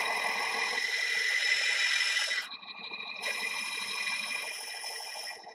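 18-inch Monarch lathe running while a grooving insert cuts a thread-relief groove into a hydraulic cylinder tube: a steady whine from the machine under a rough cutting noise. About two and a half seconds in, the cutting noise drops away and the lathe keeps running.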